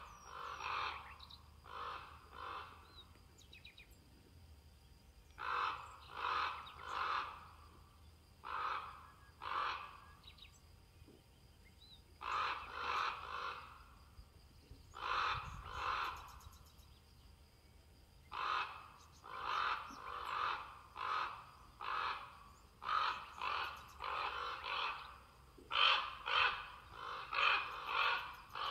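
A crow cawing: harsh calls repeated in bouts of two to five or more, with short pauses between the bouts.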